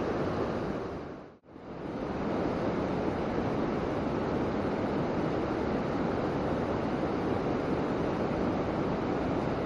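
Steady rushing of a forest hill stream's flowing water, which drops away briefly about a second and a half in and then carries on evenly.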